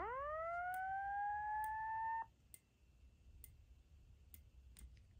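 Simplex 4903-9167 fire-alarm speaker sounding one slow-whoop evacuation tone: a sweep that rises quickly from low to high pitch, levels off and cuts off suddenly about two seconds in. Faint ticks come about once a second from the flashing xenon strobe.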